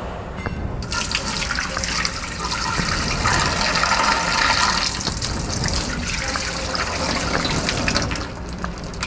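Dirty water poured out of a carpet extractor's plastic recovery tank into a stainless steel sink: a steady splashing stream that starts about a second in and thins out near the end as the tank empties.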